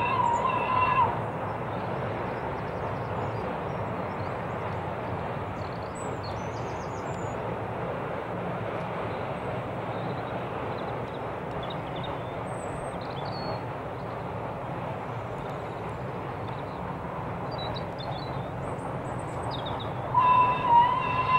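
Steam locomotive's whistle blowing one steady note, ending about a second in and sounding again near the end. In between, the steady noise of the train running across a girder bridge.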